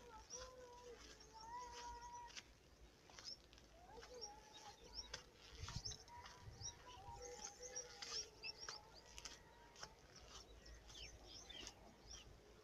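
Small birds chirping faintly in many short, quick calls over a faint, wavering tone held in long notes.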